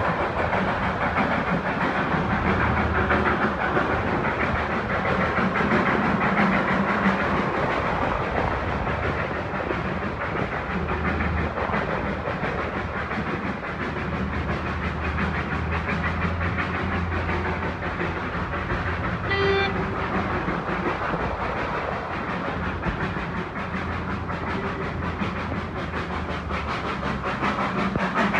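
Darjeeling Himalayan Railway narrow-gauge steam train running, heard from aboard while it hauls a heavy three-coach load: a steady rumble and rattle of wheels and coaches. A brief toot sounds about two-thirds of the way through.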